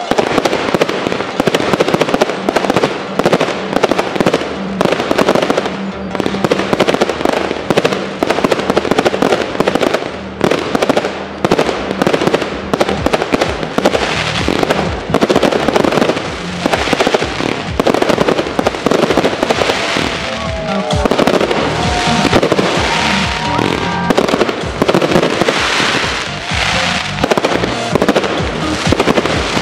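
Fireworks display in full barrage: a rapid, near-continuous run of shells launching and bursting, with crackle between the bangs. Music plays underneath.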